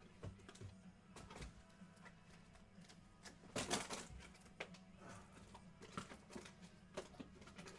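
Faint, irregular clicks and taps of small objects being handled, with a denser cluster about three and a half seconds in, over a low steady hum.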